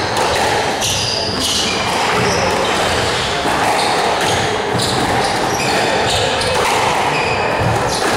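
Squash rally: the ball smacking off racquets and walls, with shoes squeaking on the wooden court floor again and again.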